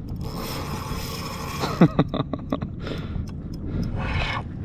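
Spinning reel being cranked against a hooked fish: a hiss for the first second and a half, a knock, then a quick run of clicks about two seconds in.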